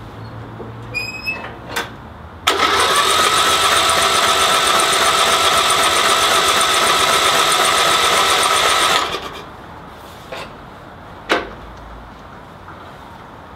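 Riding lawn mower's electric starter cranking the engine steadily for about six seconds without it catching, then cutting off suddenly. A few short clicks come before and after.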